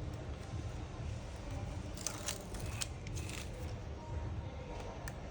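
Adhesive tape being peeled off a laptop keyboard and chassis by hand: soft crackling and rustling with a few sharp clicks, mostly about two to three seconds in, over a steady low hum.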